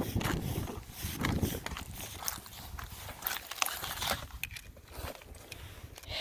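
Irregular crunches and clicks on the snow and ice, with a low wind rumble on the microphone.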